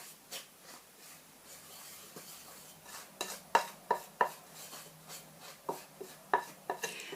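Wooden spoon mixing flour into a stiff, grated-carrot cookie mixture in a bowl: scraping, with irregular knocks of the spoon against the bowl, several coming close together about halfway through.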